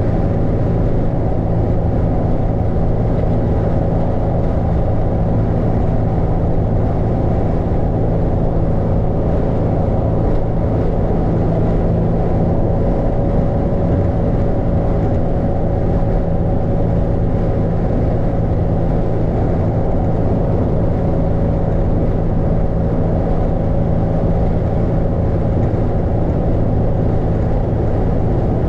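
Car driving steadily at highway speed, heard from inside the cabin: an even rumble of tyres and engine with a steady low hum.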